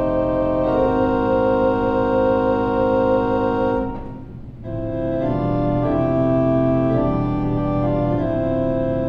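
Organ playing slow, sustained chords, with a brief pause between phrases about four seconds in.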